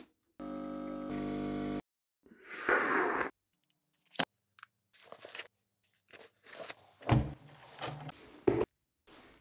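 A string of short household handling sounds: a steady buzz like an espresso machine's pump for about a second and a half, a brief hiss, faint clicks and rustles as gear goes into a shoulder bag, then a key rattling in a door lock with two sharp metallic clunks near the end, the loudest sounds here.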